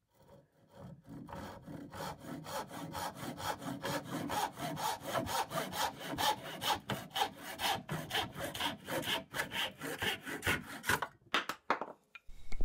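Hand backsaw cutting through a turned oak dowel clamped in a vise, trimming the waste off the end of a tenon: quick back-and-forth strokes, about three a second, that stop about eleven seconds in as the cut finishes.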